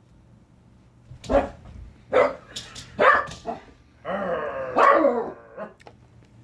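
Rat terrier barking three short times about a second apart, then giving one longer drawn-out call that bends in pitch, the dog 'talking' back.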